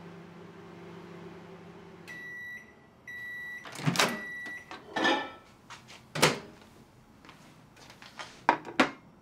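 Microwave oven running with a steady hum that stops about two seconds in, then its beeps: a short one, a pause, and a longer one. A run of sharp knocks and clatters follows, the loudest about six seconds in, as the oven is opened and handled.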